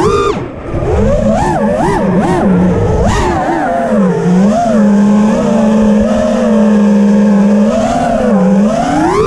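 FPV freestyle quadcopter's brushless motors whining, their pitch swinging up and down as the throttle is punched and chopped. The pitch holds steady for a few seconds in the middle, then climbs sharply near the end.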